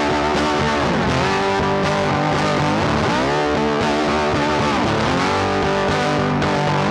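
Background music: a blues-style track led by distorted electric guitar with a steady beat.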